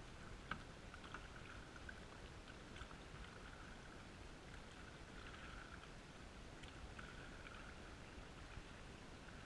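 Faint, muffled canoe paddling: paddle strokes dipping and swishing in calm water, with a light knock about half a second in. The sound is dulled by the GoPro's waterproof housing.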